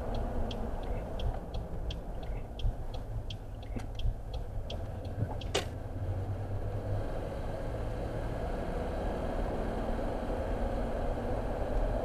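Steady road and engine rumble inside a moving car's cabin. Over the first five seconds or so a turn indicator ticks about three times a second as the car takes the exit, and it stops after a last, louder click.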